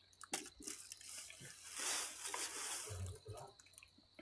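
Faint wet mouth sounds of someone eating from her fingers: small lip and tongue clicks, with a longer soft wet sound about two seconds in.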